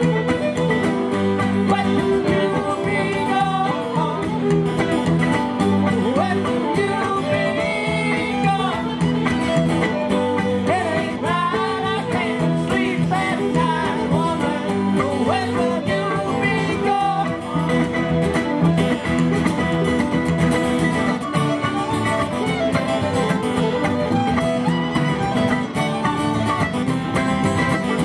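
Live bluegrass-style band playing: strummed acoustic guitar, mandolin and drums, with a fiddle in the mix, at a steady full level.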